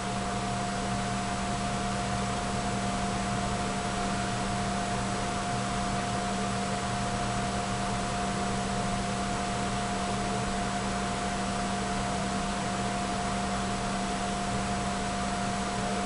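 Steady background hiss with a constant low hum and a faint steady whine, unchanging throughout: the recording's noise floor with electrical hum, and no other sound.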